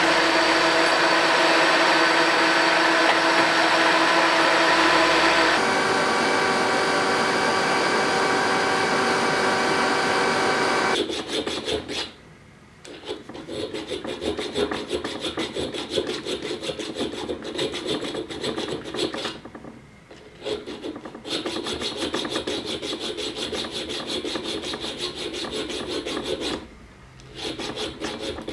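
Drilling machine running steadily, its bit boring through a metal plate held in a machine vise. About eleven seconds in, this gives way to a hand file rasping back and forth across the metal plate of a sword guard clamped in a bench vise, with a few short pauses.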